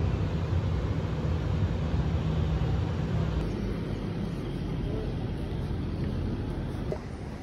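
Steady low rumble of vehicle traffic, with a low hum over it that eases off about three and a half seconds in, leaving a somewhat quieter traffic noise.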